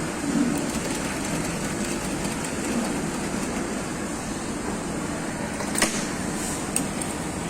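Suntar SPS/F-1507-HS-20 computer-controlled industrial sewing machine running with a steady mechanical whir, with two sharp clicks near the end.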